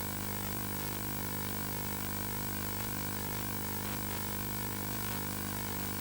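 A steady electronic drone: several low and mid tones held without change over a faint hiss.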